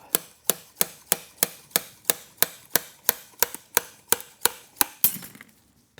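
A small slide hammer striking repeatedly, about fifteen sharp metal knocks at roughly three a second, as it pulls the rusted ignition advance mechanism off an Aermacchi Big Bore motor. The knocks stop near the end, just as the mechanism comes free.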